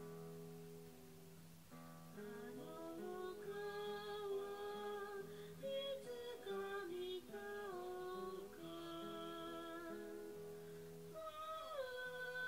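Music: acoustic guitar chords with a singing voice carrying the melody.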